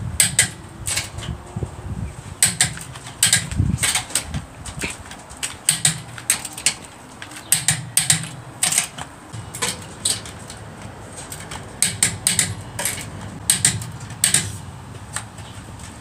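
Torque wrench tightening a car's wheel nuts: a string of sharp, irregular clicks in small clusters, a few a second.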